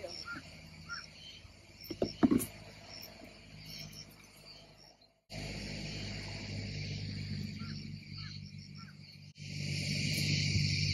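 Outdoor field ambience of insects chirping steadily, with a couple of sharp clicks about two seconds in. About five seconds in the sound cuts abruptly, and a steady low hum then runs under the chirping, growing louder after another cut near the end.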